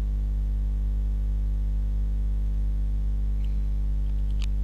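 Steady electrical mains hum with its stack of overtones, and two faint clicks near the end.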